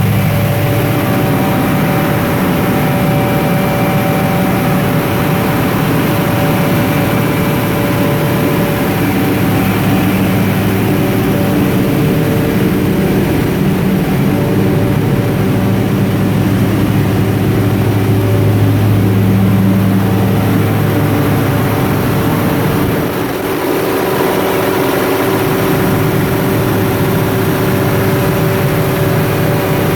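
Cummins Onan V16 turbo diesel generator engine running steadily under a load-bank test: a loud, even drone with several steady hum tones. About three-quarters through, the sound dips briefly and the mix of tones shifts.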